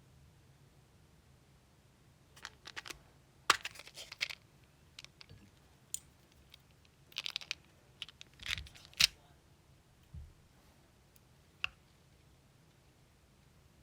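Scattered small clicks and short scraping taps of small hard objects being handled on a table, clustered in the first half and ending with a single click near the end.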